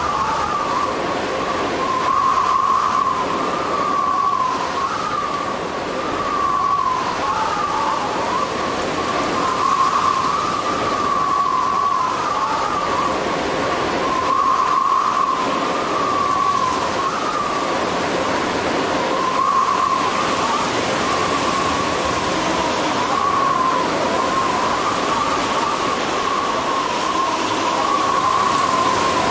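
Steady rushing storm noise with a wavering, whistling tone running through it, like wind and rain.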